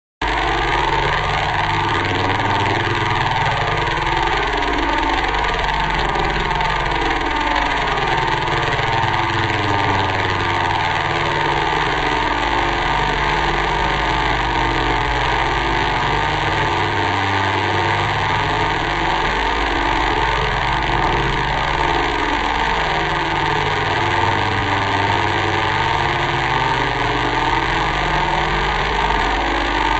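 Loud, continuous, heavily distorted sound with 'G Major' audio-effect processing, full of warbling pitch sweeps that rise and fall over a steady drone.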